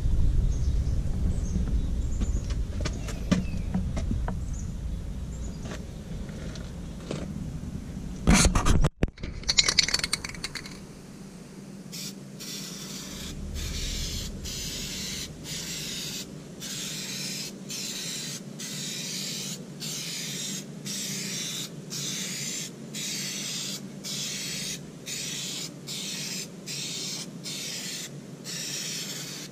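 Aerosol spray paint can hissing in short bursts, about one a second, as paint is misted onto a masked-off truck rocker panel and cab corner. Before the spraying starts there is a loud clattering knock from handling, about eight to ten seconds in.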